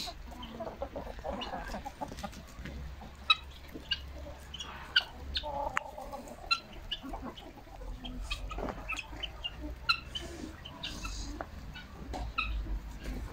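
Flock of chickens clucking, with many short, scattered calls.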